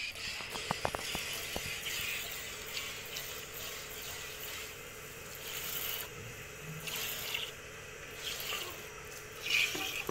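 Milk squirting in streams into a steel bucket as a cow is milked by hand, with a few light clicks about a second in.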